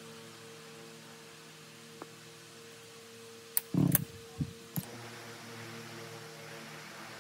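A steady low hum, with a short cluster of knocks and clicks about three and a half seconds in; the loudest is a heavy thump.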